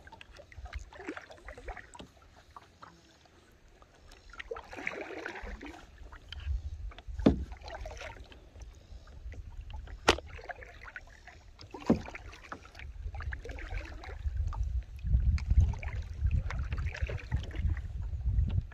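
Kayak paddle strokes dipping and swishing through the water every couple of seconds, with a few sharp knocks and a low rumble that builds from about five seconds in.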